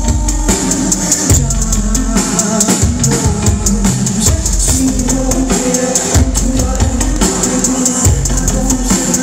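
Band music with a steady drum-kit beat and a bass line.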